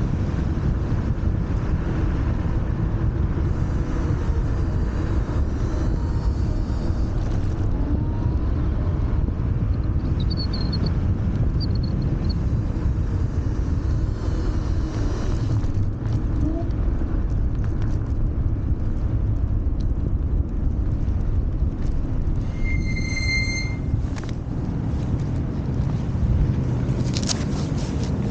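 Wind buffeting the camera microphone and a steady low rumble from riding a Wolf Warrior 11+ electric scooter. A short high beep sounds about three-quarters of the way through.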